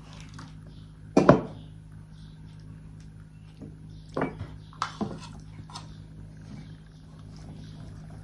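A spoon and metal dishes clinking as food is served onto plates: a few sharp clinks, the loudest about a second in and smaller ones around the middle. Soft eating sounds come in between, over a low steady hum.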